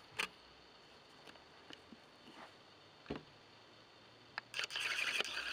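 Sheets of watercolour paper being handled on a glass tabletop: a few light, separate taps, then a dense papery rustle near the end as a sheet is moved.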